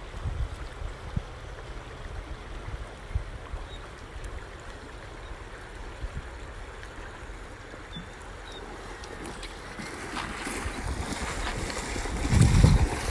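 River water running and lapping over a rocky shore, with wind gusting on the microphone in low rumbles. Near the end the noise grows louder as a swimming dog splashes in close to the shore, with a strong wind buffet just before it ends.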